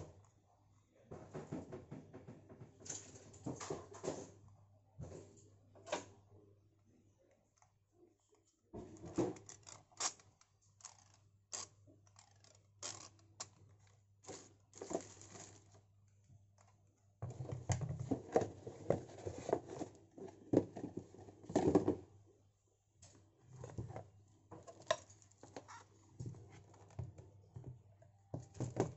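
Hands handling the plastic parts of a tablet holder and its cardboard box: irregular clicks, knocks and rubbing in bursts, with short pauses between them.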